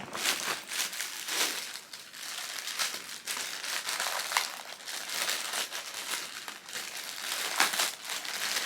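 Thin plastic packaging bag crinkling and rustling continuously in irregular crackles as it is handled.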